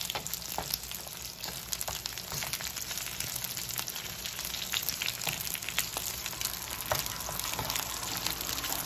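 Frozen Korean vegetable dumplings (pot stickers) pan-frying in a nonstick frying pan: a steady sizzle with frequent small crackles and pops.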